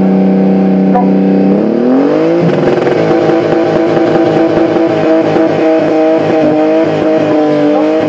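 Toyota Supra Mk4's straight-six exhaust held at steady revs for a sound-level test; about one and a half seconds in the revs climb, then hold high and steady with a rougher note.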